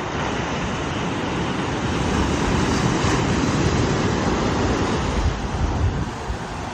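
Ocean surf: a steady rush of breaking waves that swells up in the middle and eases off near the end.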